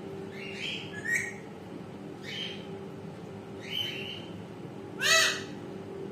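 A pet parrot giving short repeated calls about every second and a half, with one much louder, harsher call about five seconds in. A steady low hum runs underneath.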